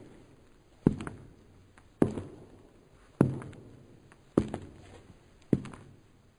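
Slow footsteps on a hard surface, about one step a second, each step a sharp knock with a short echoing tail.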